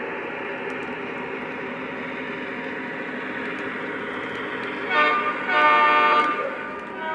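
Lionel Legacy ES44 O-gauge diesel locomotive running with a steady rumble, then its horn sounds about five seconds in: a short blast followed by a longer one.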